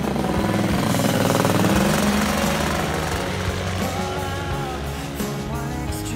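Air Conception Tornado 280 paramotor's engine and propeller passing close overhead, loudest about two seconds in and then falling in pitch and fading as it flies away. It is heard over background music with a steady bass.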